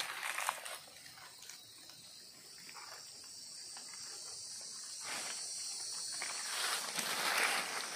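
Steady high-pitched drone of forest insects. Dry leaves rustle and a machete scrapes in the soil at the start, about five seconds in and again near the end, as a wild mushroom is dug out of the leaf litter.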